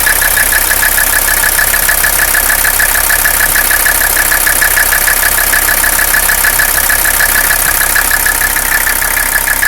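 Mercedes-Benz 300CD five-cylinder diesel engine idling roughly, with an even, rapid pulsing clatter, the engine noise the owner is seeking a diagnosis for.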